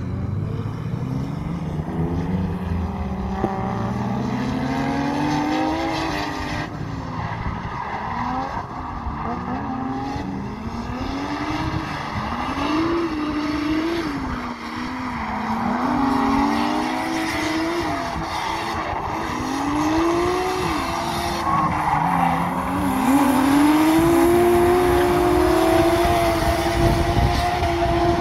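Drift car engine revving up and dropping back again and again, every second or two, as the car slides through the corners, with tyre squeal. Near the end the engine is held at high revs and is at its loudest while the tyres spin and smoke.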